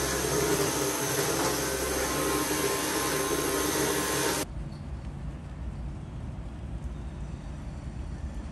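Steady whirring of an electric motor-driven fan, which stops abruptly about four seconds in, leaving a quieter low rumble.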